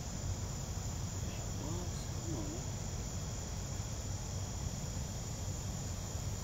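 Steady high-pitched chorus of insects buzzing without a break, over a low steady rumble.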